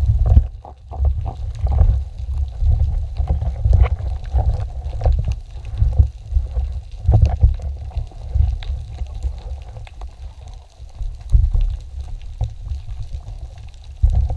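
Underwater ambience: uneven low rumbling of moving water against the microphone, swelling and easing every second or so, with scattered crackling clicks through it.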